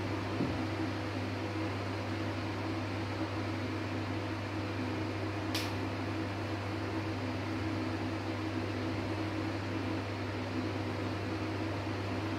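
Steady hum and whir of a running electric fan, with a constant low drone under an even hiss. A single short high tick about halfway through.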